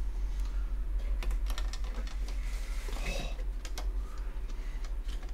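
Quick, irregular clicks and taps of a screwdriver against a graphics card and its plastic fan shroud as the shroud is lined up and screwed back on.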